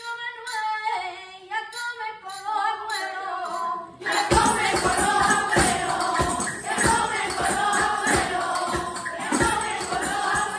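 A Spanish Christmas carol (villancico): one voice sings a line alone, then about four seconds in a group of older women joins in with tambourines and hand claps keeping a steady beat.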